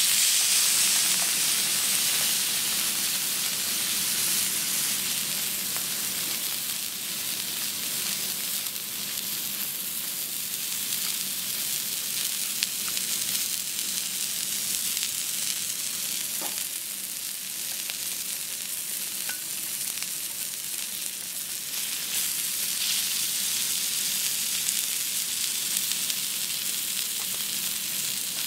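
Thick marbled beef steak searing on a flat teppanyaki griddle: a steady high sizzle, loudest in the first few seconds, with an occasional small pop.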